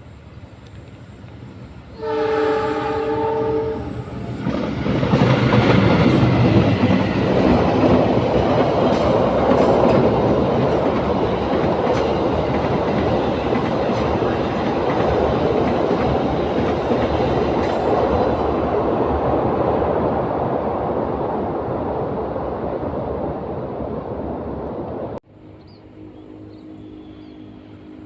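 A train sounds its horn, one steady chord held for about two seconds, then passes close by: a loud, drawn-out rumble of wheels on rails lasting some twenty seconds, which cuts off abruptly near the end.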